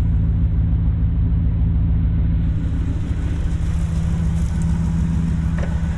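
2001 Dodge Ram 2500's 5.9-litre Magnum V8 idling steadily through dual Cherry Bomb glasspack exhausts, a low even rumble.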